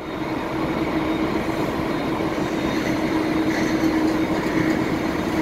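Airbus A330 jet engines running at taxi power, a steady drone with a constant low hum.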